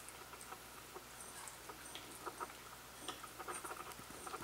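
Toy poodle puppy licking and nibbling the last cat food from a ceramic bowl: faint, irregular small clicks and licks of tongue and teeth against the bowl.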